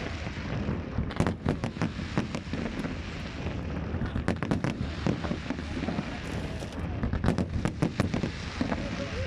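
Fireworks going off: a dense, uneven run of bangs and crackles, several a second.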